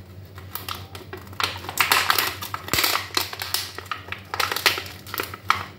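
Thin clear plastic clamshell fruit container being handled and pried open: rapid crackling and clicking of the plastic, in two dense spells, about a second and a half in and again about four and a half seconds in.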